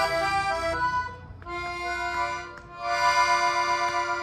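Accordion being played: a run of short melody notes, then a long held chord from about a second and a half in, with the tune carrying on over it.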